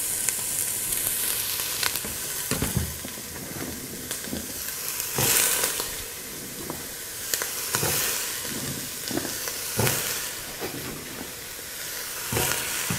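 Diced pumpkin and onion sizzling in hot olive oil in a stainless steel pot, a steady hiss as the vegetables sweat. Several short knocks sound over it.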